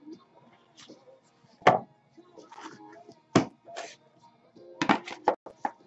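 A cardboard box of baseball cards handled and opened on a desk: sharp knocks as it hits the tabletop, a quick run of taps near the end, and short rustles of cardboard and wrapping in between. Faint background music runs underneath.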